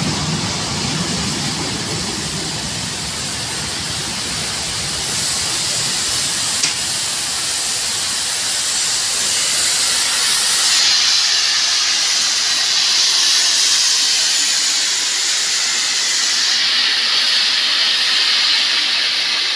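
Slowly rolling vintage train carriages, their low wheel rumble fading as the train slows, giving way to the steady hiss of a steam locomotive venting steam, loudest in the second half. A single sharp click about seven seconds in.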